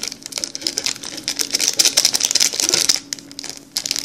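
Silver plastic seasoning sachets crinkling and crackling as they are handled in the mouth of an instant-noodle cup. The crackle is dense for about three seconds, pauses, and comes back in a short burst near the end.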